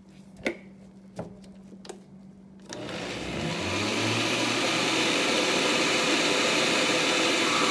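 Countertop blender switched on about three seconds in, after a few light clicks. Its motor spins up and then runs steadily, churning a full jar of milk, egg and flour batter.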